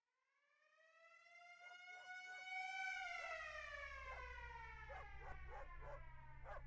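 A wailing alarm siren fades in from silence, its pitch rising slowly for about three seconds and then sinking slowly. A low rumble joins about halfway, and short sharp sounds are scattered over the wail.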